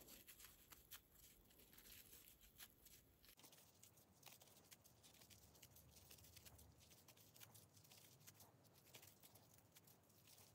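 Near silence with faint, scattered ticks and rustles: scrubby yarn being drawn through and a metal crochet hook working single crochet stitches.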